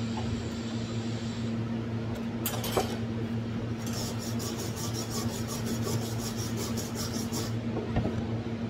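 Steady electrical hum from the welding machine, with a couple of clicks about two and a half seconds in, then a fast, even ticking of about eight ticks a second for roughly three and a half seconds from about four seconds in.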